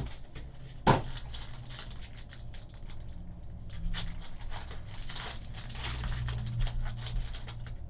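A trading-card pack's wrapper crinkling and tearing as it is ripped open by hand, preceded by a sharp knock about a second in.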